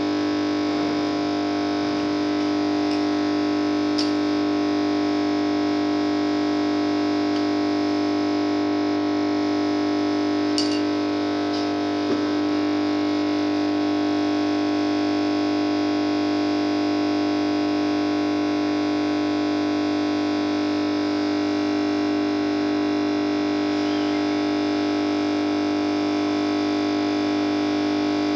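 Stove burning under a metal heating plate, a steady humming drone over an even hiss, with a couple of faint ticks about 4 and 11 seconds in.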